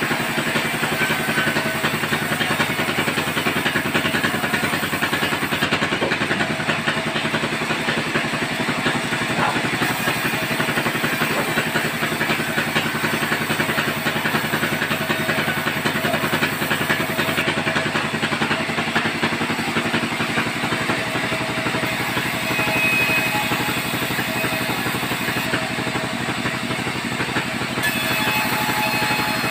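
Sawmill band saw running and ripping a log lengthwise: a steady, crisp rasp of the blade cutting through the wood over the hum of the machine.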